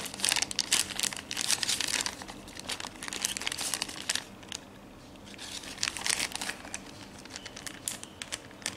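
Small clear plastic sleeves crinkling as they are handled: dense crinkling for about the first four seconds, again briefly around six seconds in, then a few light clicks.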